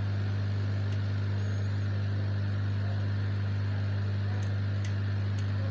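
Hot air rework station running steadily: a constant low hum under the hiss of air from the nozzle, as it heats a tablet's charging connector to desolder it.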